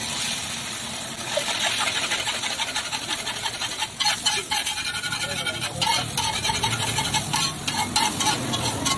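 Beaten egg sizzling as it fries on a large, hot, flat iron tawa. From about halfway through, a metal spatula scrapes and knocks against the pan as the egg is broken up and mixed.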